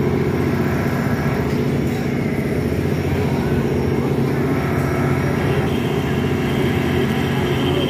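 Fairground machinery running with a steady, unbroken low engine-like drone that holds the same level throughout.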